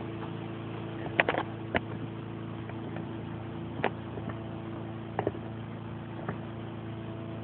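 Small leaf-blower motor running at a steady hum, supplying the air for a float-type water displacement engine, with a handful of scattered clicks and knocks from the machinery.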